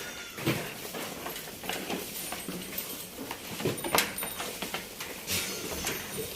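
Goats moving about in a pen: scattered hoof knocks and clatter, the sharpest about four seconds in.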